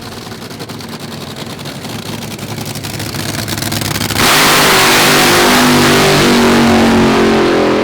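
Drag-racing car engine at high revs, running with fast, even firing and growing louder, then about four seconds in becoming suddenly much louder and rougher at full throttle.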